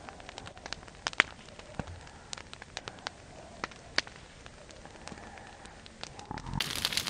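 Campfire crackling, with scattered sharp pops over a faint steady hiss; a brief low rumble sounds shortly before the end.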